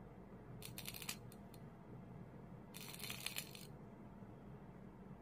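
Faint electrical arcing crackle from a deliberately created arc fault in a test box's arc-fault chamber, in two short bursts: one with a few sharp snaps about half a second in, a denser sizzling crackle around three seconds in.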